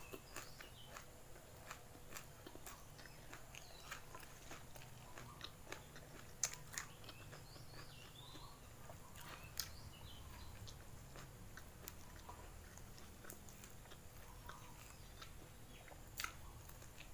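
Close-miked eating of nasi lemak with raw leafy greens and fried chicken: quiet chewing with sharp crisp crunches now and then, the loudest a little past the middle and near the end.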